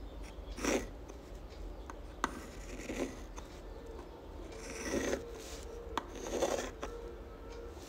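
Uni-ball fine-tip pen scratching across textured sketch paper in about four separate strokes, with a couple of sharp ticks as the tip touches down.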